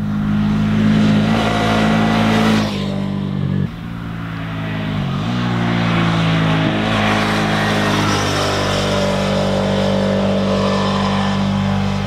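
Suzuki V-Strom 650 XT's 645 cc V-twin engine running under way at a steady pitch. The sound cuts abruptly a little under four seconds in. About five seconds in the pitch falls sharply and climbs back, then holds steady.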